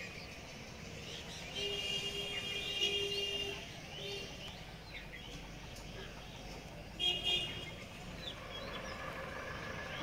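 A vehicle horn sounding: one steady blast of about two seconds, then two short toots about seven seconds in. Small birds chirp faintly in between.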